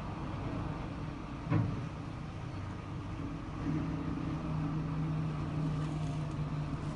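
Engines of road-repair machinery running steadily, with a single knock about a second and a half in; a steadier, stronger engine note sets in a little past halfway.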